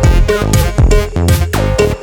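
Background electronic dance music with a steady four-on-the-floor kick drum and synth layers.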